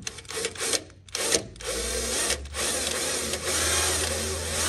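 Cordless drill boring a 3/32-inch pilot hole through aluminium fuselage skin. The motor gives a few short spurts, then runs steadily from about a second in.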